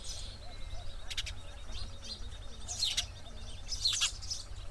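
Sparrow chirping in short, sharp clusters: a burst about a second in, then two more near the three- and four-second marks. A faint, steady high thin tone runs through the first half, over a constant low hum.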